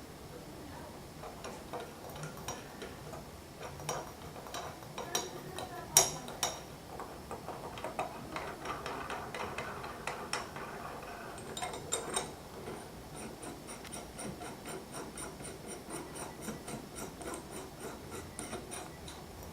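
Metal bottom bracket bearing tools being worked by hand: scattered metal clinks and a scrape, with one sharp clink about six seconds in. From about thirteen seconds comes an even ratchet ticking, about three to four clicks a second.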